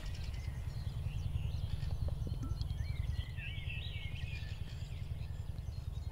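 Songbirds singing in warbling, twittering phrases over a steady low rumble.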